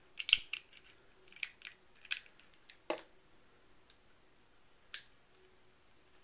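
Small clicks and taps of an e-liquid dropper bottle and a ProVari's atomizer being handled while liquid is dripped in: a cluster of sharp clicks at the start, a few more over the next couple of seconds, a duller knock about three seconds in and a last click near five seconds.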